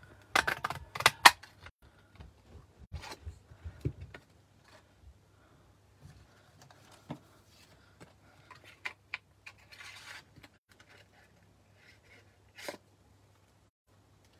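Double oval paper punch clacking several times in quick succession as it is pressed through green cardstock, followed by scattered light taps and paper rustling as the card and punched piece are handled.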